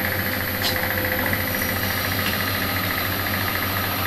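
Drilling machine running steadily with a constant motor hum while it drills fixing holes through a base plate.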